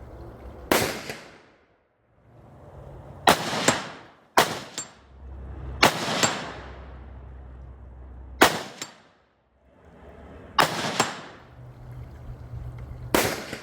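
A string of rifle shots from a bolt-action rifle at an outdoor range, sharp reports one to three seconds apart. Several are followed a few tenths of a second later by a second, shorter crack.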